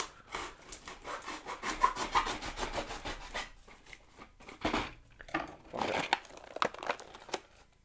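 A knife sawing and scraping through a cardboard figure box and its plastic blister: a quick run of short scratchy strokes, then a few more scrapes and rubs.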